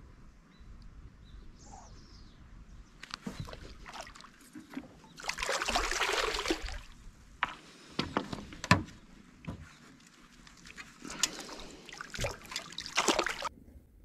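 Water splashing and sloshing in irregular bursts as a hooked fish thrashes at the surface while being landed, with a few sharp knocks among it; it cuts off suddenly near the end.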